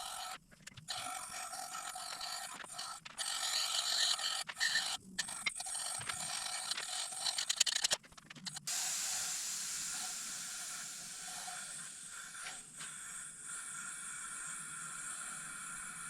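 Steady hiss of air-driven sandblasting on engine parts. It cuts out and restarts abruptly several times in the first half, then runs on steadily.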